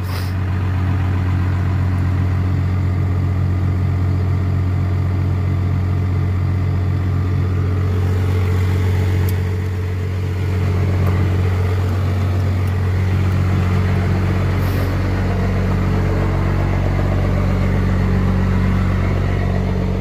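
A 1993 Dodge D250's 12-valve Cummins 5.9-litre inline-six turbo diesel idling steadily.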